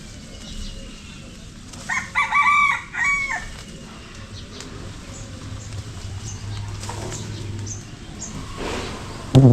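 A rooster crowing once, about two seconds in. A brief loud, low sound follows right at the end.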